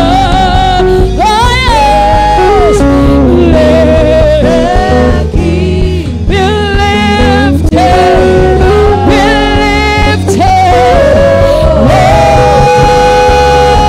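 Live gospel worship music: a woman sings a wavering, drawn-out melody over a live band playing sustained chords and bass.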